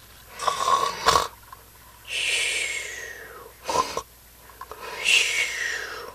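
Cartoon-style snoring, twice: a rasping snore on the in-breath, then a whistle on the out-breath that falls in pitch, with another snore starting near the end.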